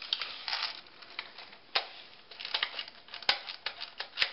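Handling noise from a 9.6 V stick battery and its wires being fitted into an airsoft Galil replica: rustling and small clicks, with three sharp plastic clicks, at about two, three and four seconds in.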